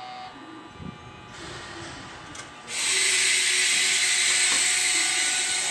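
A train's compressed-air brakes releasing with a loud hiss that comes in suddenly about three seconds in and slowly tapers off near the end. A fainter hiss builds before it.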